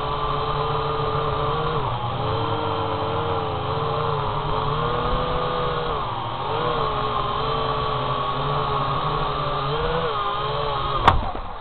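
Syma X8HG quadcopter's four motors and propellers whining steadily, heard close up from the drone's own camera, the pitch wavering up and down as the throttle changes. Near the end a sharp knock as the drone touches down, after which the whine fades.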